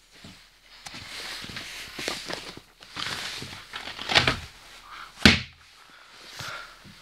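Irregular knocks and rattles inside the upper deck of a moving double-decker bus, with two loud sharp thuds about four and five seconds in.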